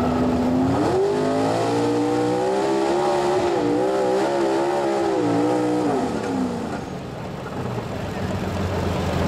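Modified gas pulling truck's engine revving up and running hard at high revs under load, its pitch wavering as the tires dig and spin in the dirt, then dropping off about six seconds in.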